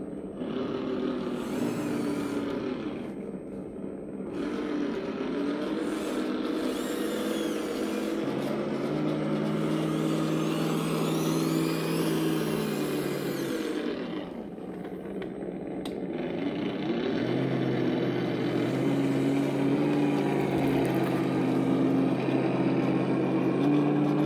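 Sense Innovations ESS One sound unit in an RC model tractor playing a simulated diesel engine through its small speaker, the revs stepping up with throttle, dropping back about halfway through and rising again later; its sound file has not yet been reprogrammed for this tractor. A fainter whirring from the model's electric drive runs underneath.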